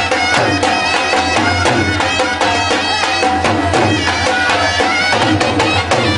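Live folk music: a wind instrument plays a melody that bends in pitch over a quick, steady drum beat.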